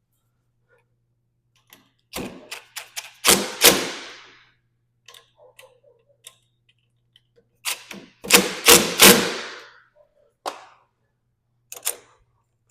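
Sharp clicks and knocks of door lock and handle hardware being handled and fitted into a sliding glass door: a cluster of clicks about two seconds in, ending in two loud knocks with a short ring, then a second loud cluster near the middle and a few single clicks after.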